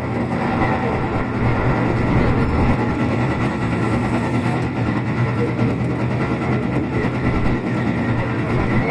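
Tobu 8000 series electric train running at steady speed: a continuous hum from the traction motors mixed with wheel and rail rolling noise.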